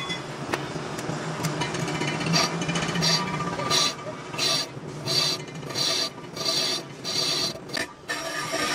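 Repeated rasping strokes, like a file or scraper worked by hand, coming about two a second in the second half, over a steady low hum.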